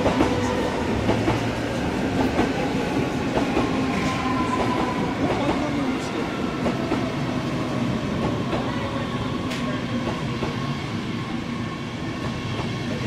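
Deutsche Bahn Intercity coaches rolling past, wheels clattering steadily over the rails under a faint steady whine.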